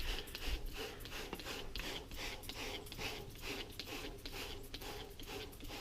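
Hand spray bottle spraying water in quick repeated squirts, about four a second, each a short hiss. The water rinses off the copper sulfate solution to stop the patina changing colour.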